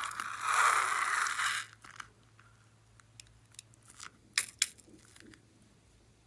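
Slime being squeezed and worked by hand: a loud crunching crackle for the first second and a half or so, then scattered small clicks and two sharper pops about four and a half seconds in.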